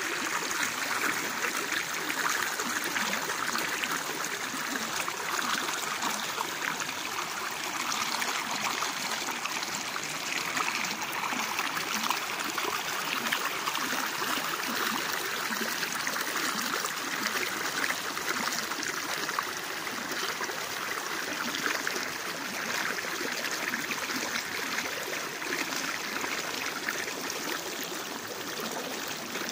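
Water of a small waterfall running in a steady, even rush.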